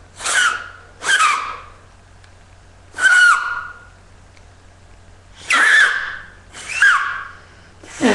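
Homemade paper whistle, a folded sheet with two cut-out diamonds, blown between two fingers. Six short, breathy blasts each carry a wavering squeal that bends and drops in pitch; the tone catches only partly.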